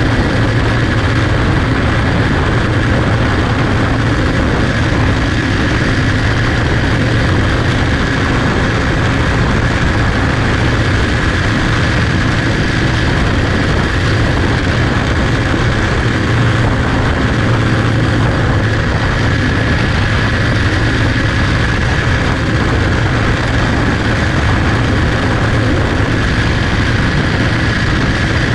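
Onboard sound of a small clone-engined race car's single-cylinder engine running flat out at a steady pitch while racing, loud and unbroken.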